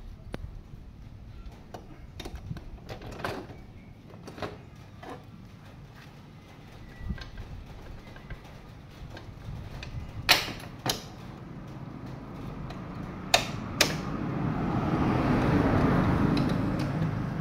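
Scattered metallic clicks and knocks from hands and tools working on a motorcycle's rear wheel and brake, with two pairs of sharp knocks about ten and thirteen seconds in. Near the end a rush of noise swells up and fades away.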